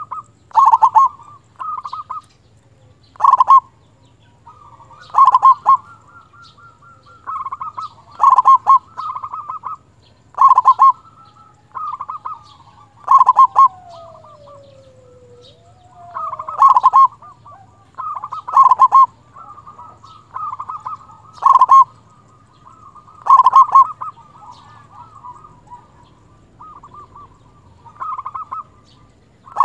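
Local zebra dove (perkutut) singing: loud, short cooing phrases repeated every second or two, with brief pauses between them. About halfway through, a faint whistle falls and then rises again.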